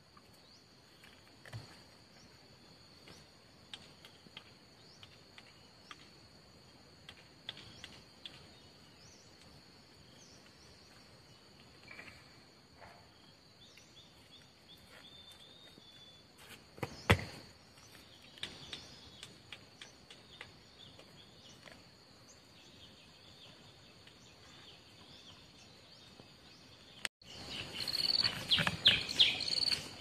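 Steady high-pitched insect chorus of crickets or cicadas, with faint scattered steps and twig clicks and one sharp knock about halfway through. Near the end the sound turns suddenly louder, with footsteps and a regular, repeating chirp.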